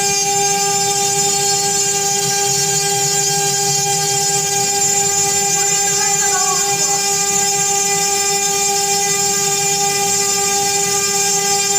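CNC machine running with a steady, unchanging high whine over a hiss.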